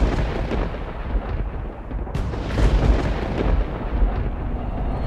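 Intro sound effect: a deep, continuous rumble with a few sharp cracks and booms, the sharpest about two seconds in.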